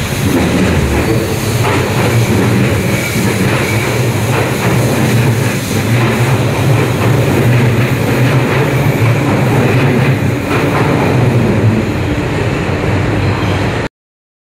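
Hanshin 5001-series commuter train running past at close range: a loud, steady rumble of wheels and motors that cuts off abruptly about a second before the end.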